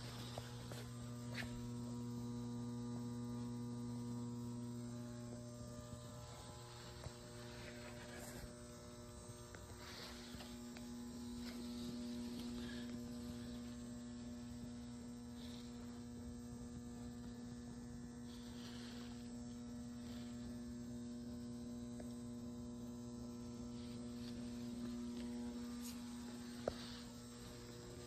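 Steady electrical mains hum with a few even overtones, with a couple of small handling clicks, the sharpest near the end.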